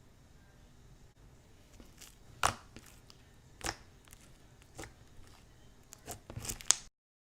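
Slime being squeezed and poked: sharp crackling pops about a second apart, then a quick run of them near the end before the sound cuts off abruptly.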